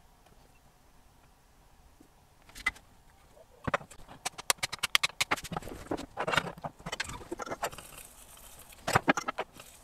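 Small metal tools and hardware being handled on a workbench: after a quiet start, clusters of sharp clicks, taps and rattles from about four seconds in, with a few more near the end.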